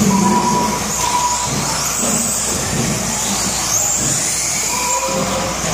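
Radio-controlled 4WD buggies racing, their motors whining at a high pitch that rises and falls as they speed up and slow down through the corners.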